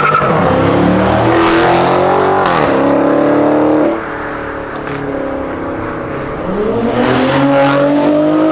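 Car engine accelerating hard, rising in pitch, with a quick drop in revs a couple of seconds in like an upshift. It then backs off to a quieter stretch before another car engine pulls away, rising in pitch again near the end.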